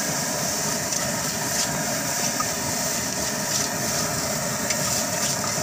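Fried rice being stir-fried in a large steel wok over a gas burner: a steady rushing noise, with a few light scrapes of the spatula against the wok.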